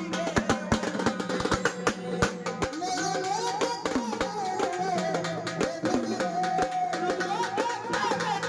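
Band music: quick, steady drum strokes, with a wavering melody line coming in about three seconds in.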